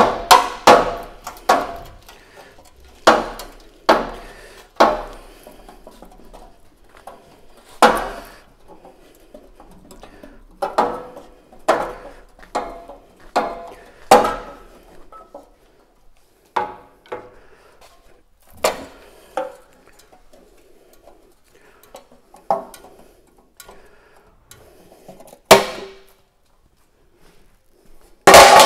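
Hammer blows on a steel truck-body frame: irregular metallic clangs with a short ring, several in quick runs at first, then sparser, with a last loud clang near the end.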